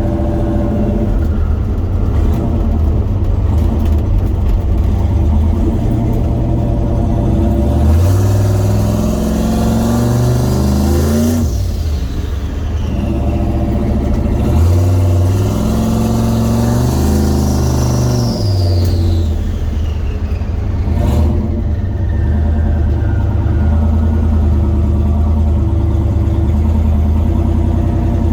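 Turbocharged truck engine fitted with a Garrett G42-1200 turbo, running steadily and then pulling up in revs twice, each pull cut off sharply as the throttle comes off. A high turbo whine rises with the revs and falls away after the second pull.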